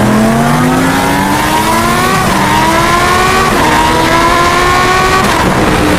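Racing car engine accelerating hard through the gears, its pitch climbing and dropping back at two upshifts, about two seconds in and again a little over a second later, then cutting off suddenly.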